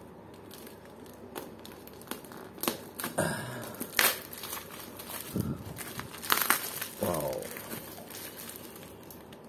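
Plastic wrapping around a coiled high-pressure washer hose being cut and pulled open by hand: crinkling, with several sharp snaps and tears, the loudest about four seconds in.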